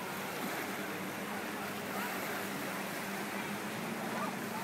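Small waves lapping at a lakeshore over a steady rush of water, with a distant motorboat engine giving a steady low drone that rises slightly near the end.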